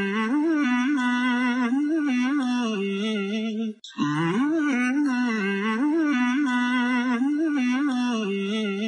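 A voice humming a wavering melody in one continuous phrase, which breaks off briefly about four seconds in and then repeats the same phrase.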